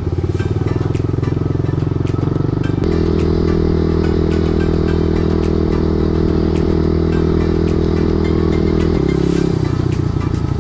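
Dirt bike engine running under way at steady revs, its note jumping to a new steady pitch about three seconds in and changing again near the end, with scattered sharp ticks over it.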